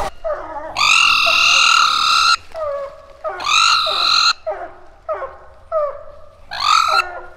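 Walker coonhounds barking treed: long drawn-out bawls, three in all, mixed with shorter, lower chop barks in between.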